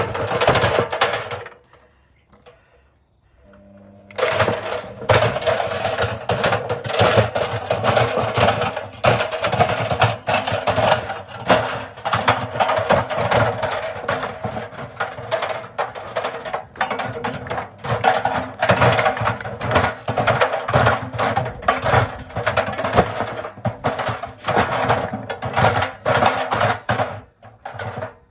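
Simpson washing machine running hard with a fast, continuous rattling and knocking over a steady motor hum. It goes almost silent for about two seconds near the start, then starts up again.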